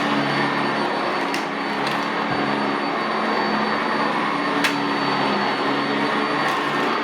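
Sanitaire SC679J commercial upright vacuum running steadily over carpet: a steady motor hum with a thin high whine above it, and a few sharp ticks, about a second in, near two seconds and again past four and a half seconds.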